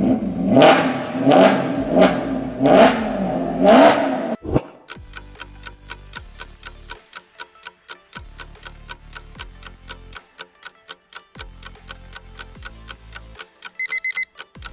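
A car engine revved several times, its pitch rising and falling with each blip. About four and a half seconds in, it gives way to quick, even clock ticking over a pulsing electronic bass beat, a countdown timer, with short beeps near the end.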